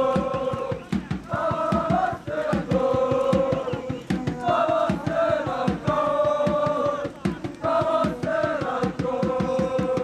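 Cheering section of supporters singing a chant in unison, in long held notes that step up and down, over a steady beat.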